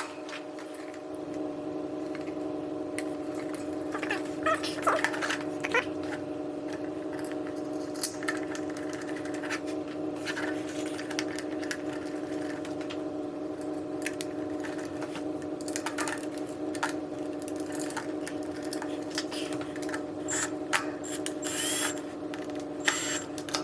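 A steady motor-like hum holding one pitch, with scattered clicks and knocks of small metal parts and tools being handled while screws are taken out of an exercise-bike console. The hum cuts off abruptly just after the end.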